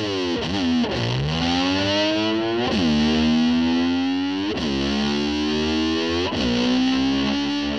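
Distorted electric slide guitar imitating a motorcycle revving. Four times the pitch plunges sharply and then climbs back, before it settles on a held note near the end.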